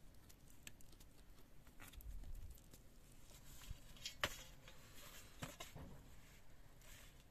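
Faint clicks and scrapes of metal pliers and a wooden spit being worked out of a roasted chicken on a metal tray, with one sharper click a little past four seconds in.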